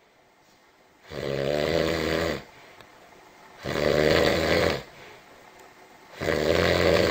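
Snoring: three long, rough snores, each a little over a second, about two and a half seconds apart.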